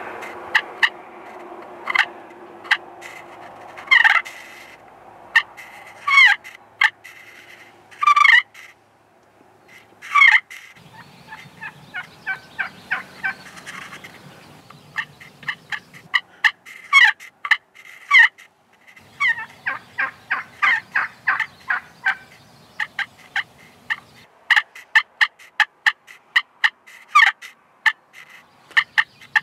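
Friction turkey call worked with a wooden striker, giving short turkey yelps and clucks: single notes spaced out during the first ten seconds, then fast runs of notes.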